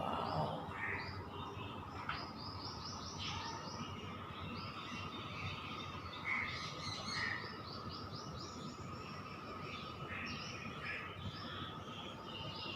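Morning chorus of small birds chirping and trilling, many short calls overlapping, over a steady faint high tone.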